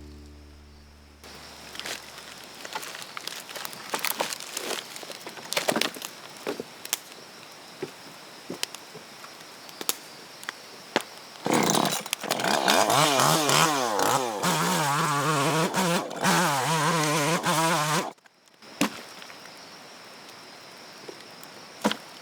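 Two-stroke chainsaw engine starting and revving up and down for about six seconds, then cutting off suddenly. Before it there is a faint steady outdoor hiss with scattered clicks.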